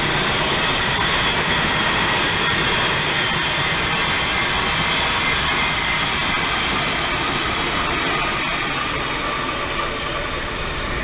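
Freight train of hopper cars rolling past, a steady rumble of steel wheels on rail, with a trailing Union Pacific diesel locomotive going by partway through. The sound eases slightly near the end as the train clears.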